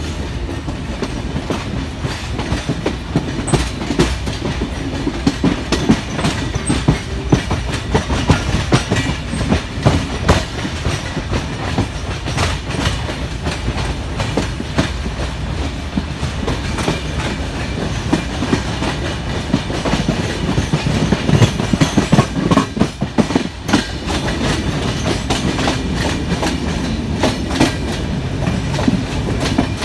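Bangladesh Railway passenger carriage running along the track, a steady low rumble with frequent sharp clicks and clacks of the wheels over rail joints, heard from inside at an open window.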